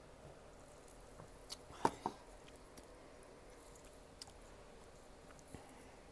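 Faint close-up chewing and mouth sounds of someone eating soft frosted birthday layer cake, with a few short clicks about two seconds in.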